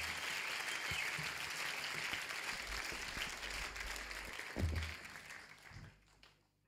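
Studio audience applauding, dying away over about five seconds, with a low thump about four and a half seconds in.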